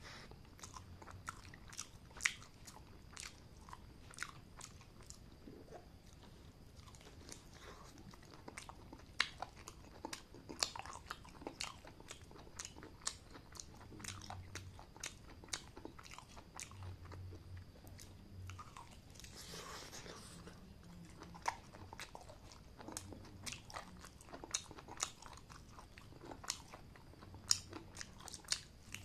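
A person eating chicken and rice by hand: wet chewing and lip smacking, with many sharp mouth clicks scattered throughout.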